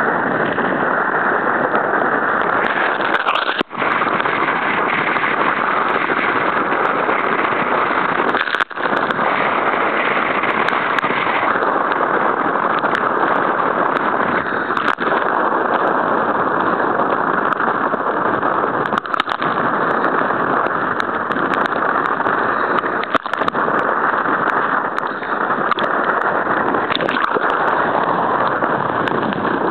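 Force 9 gale wind buffeting the microphone over breaking storm surf: a loud, steady rush of noise that briefly drops out about four and nine seconds in.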